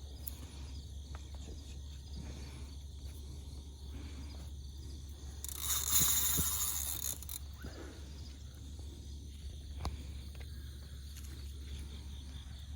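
Steady outdoor riverbank background with a constant high insect buzz and a low rumble, a few faint clicks, and about halfway through a loud rush of noise lasting about two seconds.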